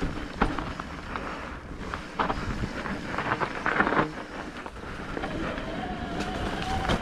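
Electric mountain bike ridden over a rough trail: rattling and knocking of the bike over the ground, with wind on the microphone. About five seconds in, a steady whine sets in.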